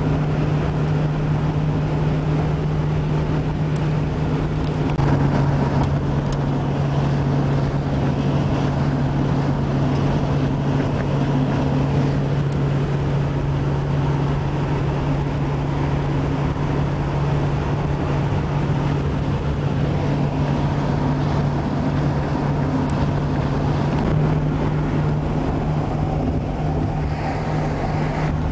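Steady engine and road noise inside a vehicle's cabin at highway speed, with a constant low engine drone that dips slightly in pitch about five seconds in and comes back up near the end.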